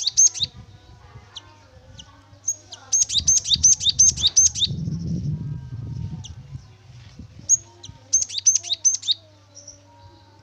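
Cinereous tit (gelatik batu) singing: fast phrases of repeated high two-part notes, each falling in pitch. They come in bursts near the start, around three to four seconds in and around eight seconds in, with single notes between them. A steady low hum lies under the song.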